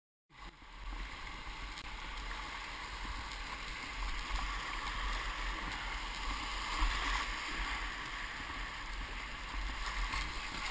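Whitewater rushing through a class II–III rapid, heard from a kayak running it: a steady hiss of moving water with a low rumble underneath. The sound cuts in just after the start.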